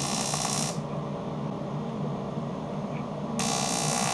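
AC TIG welding arc at about 15 A on 0.2 mm aluminium can wall, hissing and crackling in two spells: one lasting under a second at the start, and another from about three and a half seconds in. A steady low hum runs underneath.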